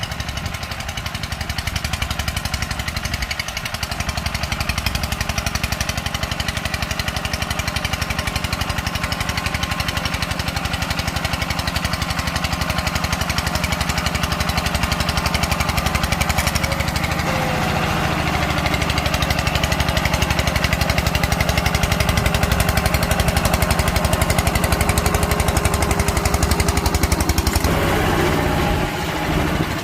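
Walk-behind power tiller's single-cylinder diesel engine chugging with a fast, even thump while it tills soil, getting louder a little past halfway.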